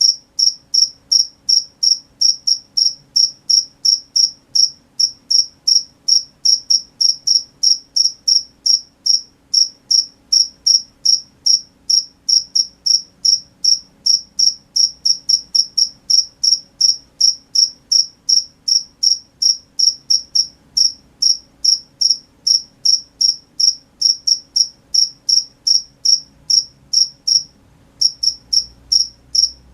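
A cricket chirping in a steady, even rhythm, about three high-pitched chirps a second, with one brief break near the end.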